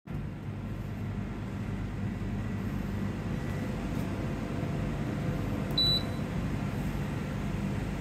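Steady low electrical hum with one short, high electronic beep about six seconds in.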